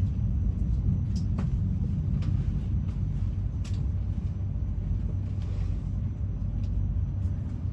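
Passenger train running, heard from inside the coach: a steady low rumble with a few faint clicks scattered through it.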